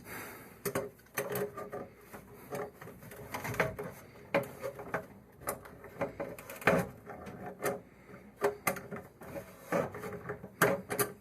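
Irregular clicks, clinks and knocks of pliers working on brass plumbing fittings and hose connectors while they are being tightened.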